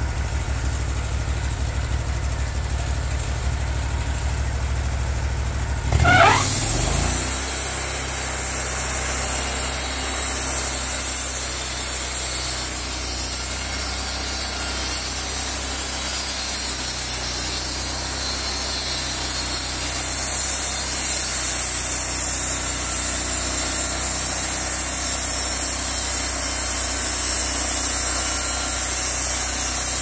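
Wood-Mizer portable bandsaw mill's engine idling with a low rumble, then about six seconds in it throttles up with a rising whine as the band blade is brought up to speed. It then runs steadily at speed with a strong high hiss from the blade.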